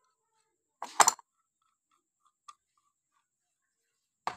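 A few sharp metal clicks and clinks from an adjustable wrench and a steel fitting being handled against a diesel engine pump's metal body: a cluster of clinks about a second in, a faint tick midway, and one more sharp click near the end.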